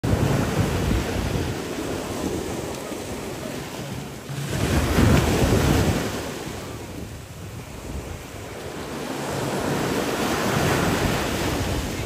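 Ocean waves breaking and surging over rocks. The rushing swells and fades, loudest about four and a half seconds in, and builds again toward the end.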